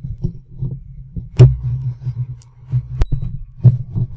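Handling noise picked up by a Blue Yeti USB microphone as it is touched: low rumbling bumps and knocks, with a sharp click about a second and a half in and another about three seconds in.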